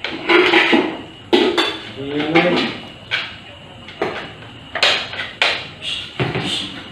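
Metal spoons and forks clinking and scraping on plates during a meal, several sharp clinks in quick succession, with short bits of talking in between.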